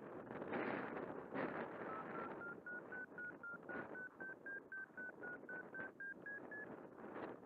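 A run of short electronic beeps, about four a second, that step slowly up in pitch for several seconds, plausibly from the handheld radio-control transmitter of a slope-soaring glider. Gusty wind buffets the microphone throughout.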